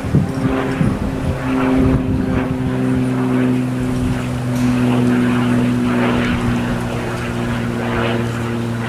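Steady engine drone, a low hum of several held tones that shifts slightly in pitch about a second and a half in.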